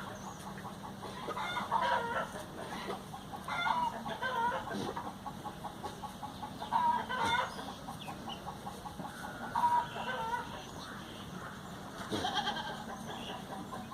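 Farmyard fowl clucking, with short calls every couple of seconds over a steady low hum.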